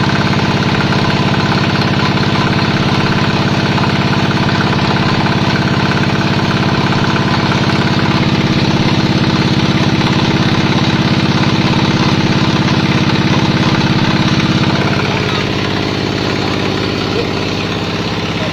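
Vertical pellet mill running, its engine-driven drive giving a steady, loud mechanical drone. About fifteen seconds in the sound eases slightly and drops in pitch.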